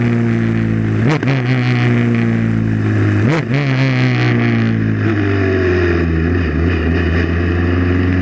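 Racing prototype's Honda two-litre four-cylinder engine heard from the cockpit, its revs falling steadily with two short throttle blips about two seconds apart, like downshifts as the car slows.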